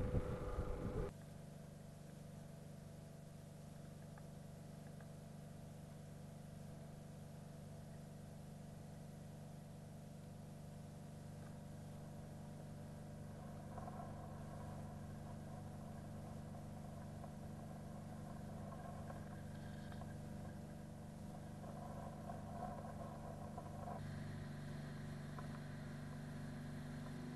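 Muffled, steady mechanical hum of the pump pressurizing a water-filled pressure test chamber, heard through the water, with a low drone that gets slightly louder later on. For about the first second there is a louder rushing noise, which cuts off suddenly.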